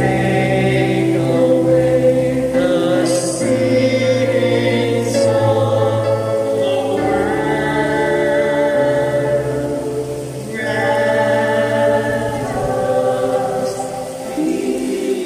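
A small mixed choir singing a slow liturgical hymn in held notes, accompanied by a Yamaha electronic keyboard playing sustained chords.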